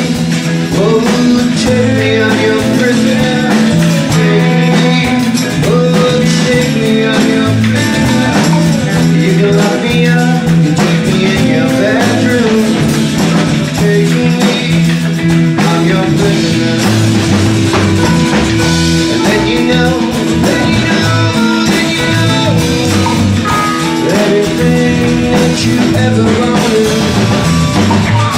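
Live rock band playing loud, with electric guitar, low held bass notes and a drum kit.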